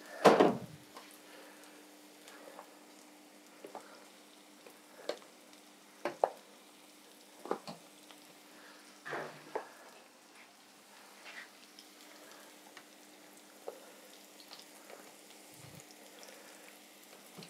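Plastic dough scraper pushing Knöpfli dough through a perforated metal Spätzle sieve into a pot of hot water: irregular short scrapes and knocks, the loudest at the very start, over a faint hiss and a steady low hum.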